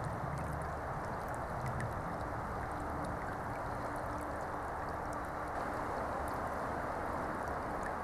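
Small brook running full with snowmelt, its muddy water rushing and gurgling steadily down a narrow grassy channel.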